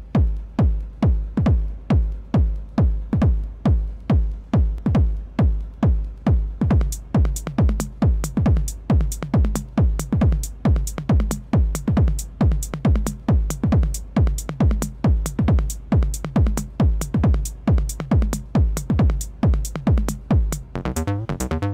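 Techno: a fast, steady drum-machine kick alone at first, joined about seven seconds in by hi-hats. Near the end the kick gives way to a busier, rolling pattern.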